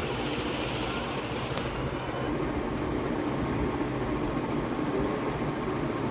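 Vintage ceiling fan running steadily: an even rush of moving air with a faint, steady motor hum.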